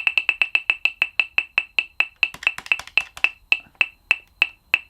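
Casio PT-87 keyboard beeping out its score tally after the score button is pressed. It gives a train of short, high clicking beeps on one pitch, fast at first and slowing steadily until they stop near the end.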